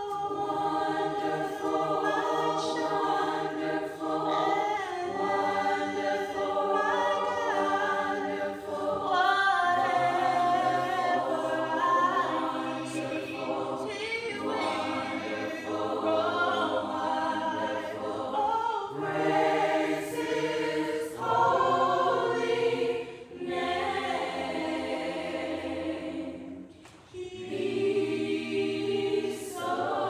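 Choir of mixed men's and women's voices singing, with held notes that change every few seconds and a brief break about three seconds before the end.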